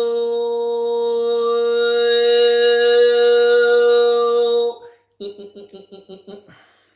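A voice toning one long steady note, breaking off suddenly, then after a short pause a rapid string of about a dozen pulsed syllables on a pitch, as in a vocal trill or chanted light language.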